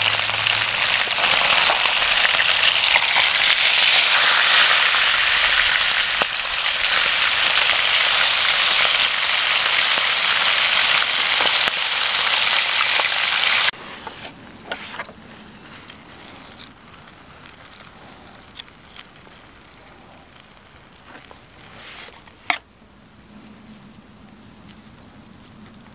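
Whole trout pan-frying in oil in a nonstick skillet: a loud, steady sizzle and crackle that cuts off abruptly about 14 seconds in. After that it is much quieter, with a few light clicks and one sharp click near the end as metal tongs work the fish in the pan.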